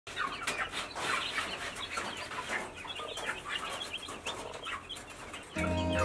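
A brood of young broiler chicks peeping, a dense overlapping chorus of short high-pitched peeps. Music comes in near the end.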